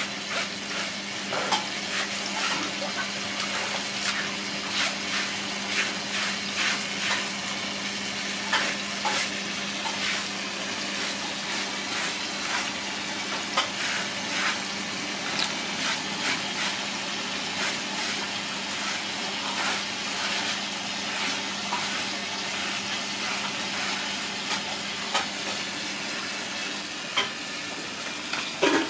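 Running water splashing on a wet concrete floor, with wet rubbing, scraping and slapping as hands scrub a snake's body clean. A steady low hum runs underneath.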